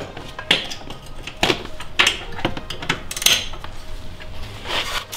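Metal wrench clinking and clanking against the front control arm bolt as the bolt is loosened, about half a dozen irregular sharp strikes.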